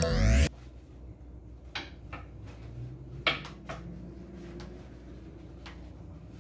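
Background music cuts off about half a second in, then a handful of scattered light knocks and clatters of bottles and containers being handled and set down on a kitchen cupboard shelf, the loudest a little past the middle.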